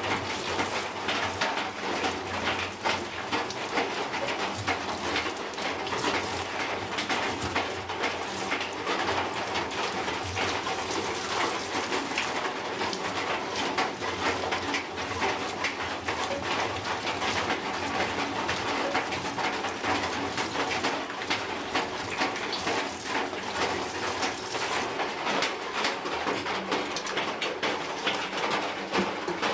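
Tap water running and splashing while slimy eels are rinsed and rubbed by hand in a sink and steel bowls, a steady wet splashing with many small slaps and drips.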